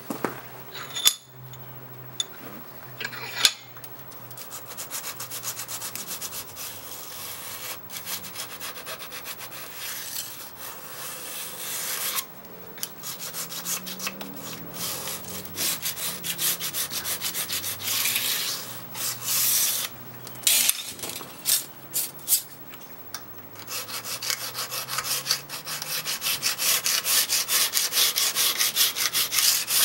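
Steel burnisher rubbed in repeated strokes along the edge of a scraper cut from an old Japanese saw blade, turning a hook on the edge. There are a couple of sharp clicks early on, and the strokes come fast and steady near the end.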